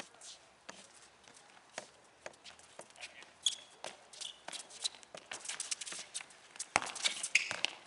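Sneakers scuffing and tapping on a concrete court as players run, with a soccer ball being kicked and bouncing. The taps and scuffs get busier from about five seconds in.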